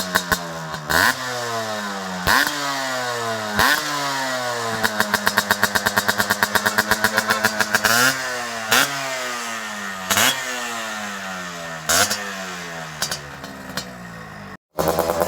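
Yamaha RX100's two-stroke single-cylinder engine revved through its exhaust in repeated sharp throttle blips. Each time the revs jump up quickly and then fall back slowly. Between the blips it runs with a rapid, even pulsing. The sound breaks off briefly near the end and then starts again louder.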